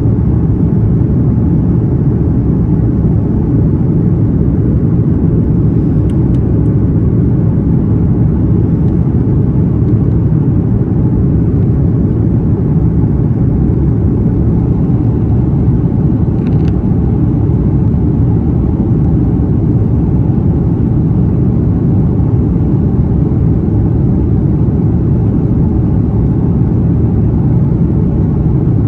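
Steady, loud low rumble of an Airbus A330's engines and airflow heard inside the passenger cabin.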